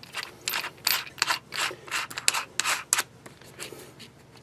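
Plastic keyless chuck of a Black & Decker LDX120C cordless drill being twisted by hand to grip a bit: a series of short scraping strokes, two or three a second, trailing off near the end.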